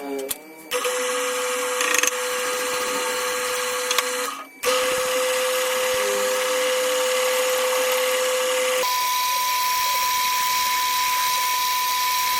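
Small electric power tool motor running at a steady speed with a drill-like whine. It stops briefly about four seconds in, starts again, and a few seconds later switches to a higher, steady pitch.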